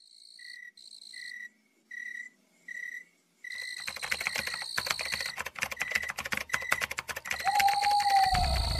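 Sound effects: short chirping pulses repeating about once every 0.7 s, like crickets, joined about 3.5 s in by rapid keyboard-typing clicks. Near the end a gliding tone sounds and a loud low rumble starts.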